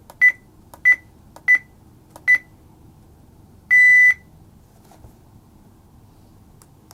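Maxkin X1 alarm control panel beeping as its learn button is pressed: four short, high beeps at roughly two-thirds-second intervals, ending a seven-press sequence that deletes all paired devices. About a second and a half later comes one longer beep.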